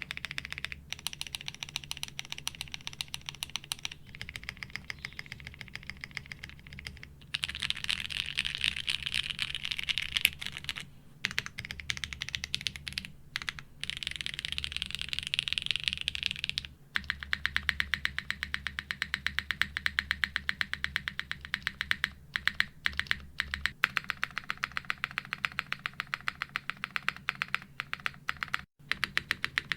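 Mechanical keyboard keys being pressed rapidly and repeatedly, a fast run of clacks: first the modifier and other keys of a Geonworks F2-84 keyboard. About two-thirds of the way through it changes to spacebars being hammered, comparing the Geonworks Glare TKL, F1-8X 722 and F2-84.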